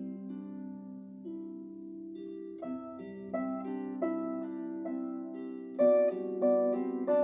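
Solo harp, a Blevins 38-string harp, playing a slow melody: low notes left ringing for the first couple of seconds, then plucked notes about every two-thirds of a second, with stronger plucks about six seconds in.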